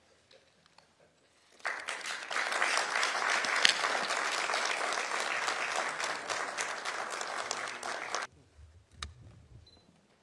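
A small group of people applauding. The clapping starts about a second and a half in, holds steady, and stops abruptly about eight seconds in. A single sharp click follows near the end.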